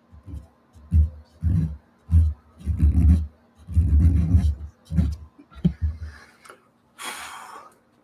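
Handling noise: an irregular series of loud, muffled low thumps and rubs as the painter's body and cotton T-shirt move against the camera microphone, followed near the end by a short hissy rustle.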